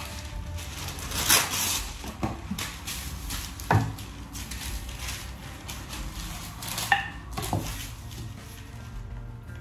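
Wooden rolling pin knocking and rolling against a wooden board as dough is rolled out, with several sharp knocks.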